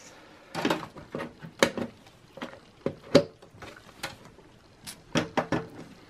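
Irregular clicks, taps and light scrapes of an MSI GeForce GTX 950 graphics card being handled and fitted into a PCI Express x16 slot in an open workstation case.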